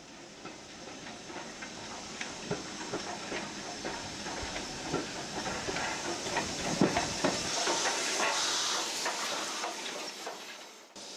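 Steam tank locomotive moving a train of coaches slowly past, with steam hissing and wheels and coaches clicking and knocking over the rail joints. It grows louder as it nears, and the steam hiss is strongest near the end.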